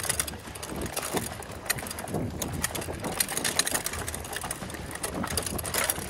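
Mountain bike rattling over a rough dirt trail on a steep downhill: a rapid, uneven clatter from the bike and its tyres on dirt and roots, over a low rumble.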